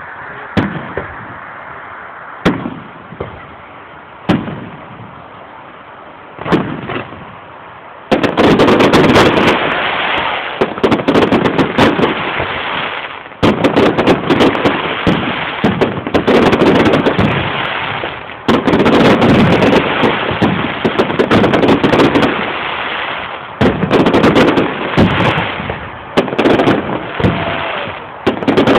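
Fireworks display: scattered single shell bursts for the first several seconds, then from about eight seconds in a dense, almost continuous barrage of bangs and crackle that runs with only brief lulls.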